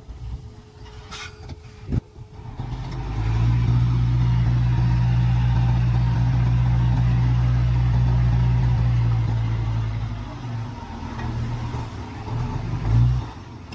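Heavy earthmoving machine's engine running. It swells to a steady low hum about three seconds in, holds, and eases off about ten seconds in, with a brief rise near the end.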